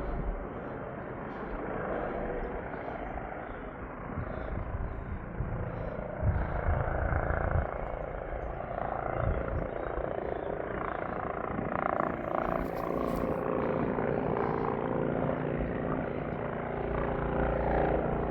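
Air rescue helicopter running close by: steady rotor and turbine noise with a faint whine, low rumbling surges about six seconds in, and growing louder near the end.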